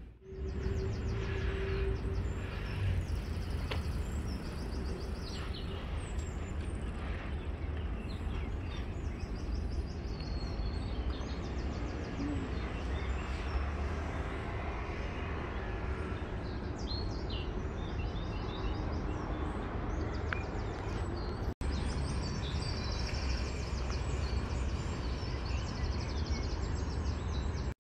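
Outdoor park ambience: small birds chirping and trilling over a steady low rumble. The sound cuts out briefly a little over two-thirds of the way through.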